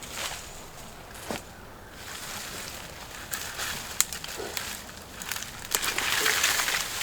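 Walking and pushing through dry brush and cut branches: leaves and twigs rustling and crackling, with a few sharp snaps. The rustling grows louder near the end.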